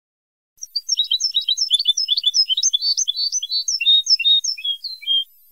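Recorded European goldfinch song from a goldfinch song-tutor tape: after a short silence, a fast run of short twittering notes begins. It lasts nearly five seconds and then cuts off abruptly.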